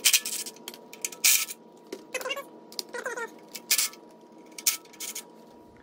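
Hand wrench working engine bolts: irregular metallic clicks and clinks, with two short squeaks about two and three seconds in.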